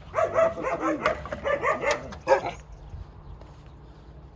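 Several dogs barking and yipping in quick succession, dying down after about two and a half seconds.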